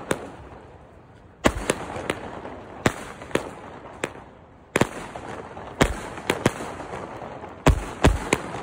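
A 100-shot fireworks cake firing its shells: irregular sharp bangs as they burst overhead, one or two a second with crackling between, after a short lull about a second in.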